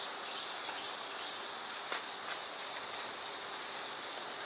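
Insects trilling steadily in a high, even tone, with two faint clicks about two seconds in.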